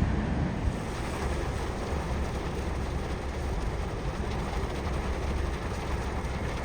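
Gale-force wind blowing steadily, a low rumble with an even hiss above it.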